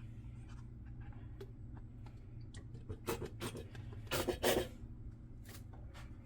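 Small handling sounds during food preparation: light taps, clicks and scrapes, with a few louder scraping strokes between about three and four and a half seconds in, over a steady low hum.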